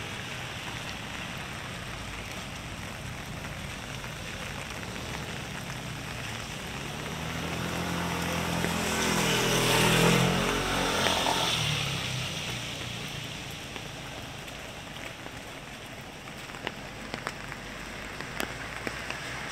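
Steady rain on a wet street, with a vehicle passing on the wet road about halfway through, its engine and tyre hiss swelling to a peak and fading away. A few sharp ticks near the end.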